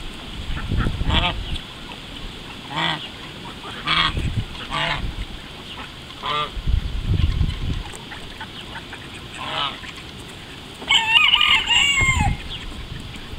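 Call ducks quacking: short single calls a second or two apart, then a louder run of calls near the end.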